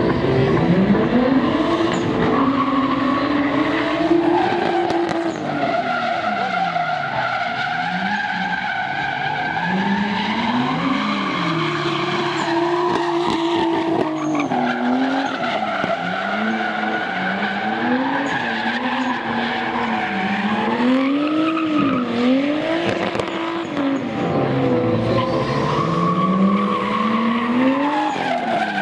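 A drift car's engine revving up and down over and over as it slides through a qualifying run, with its rear tyres skidding and screeching throughout.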